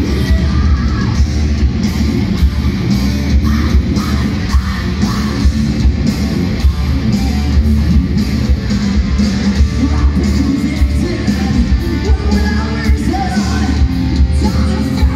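Hard rock band playing live at full volume through the PA: distorted electric guitar, electric bass and drums, with vocals.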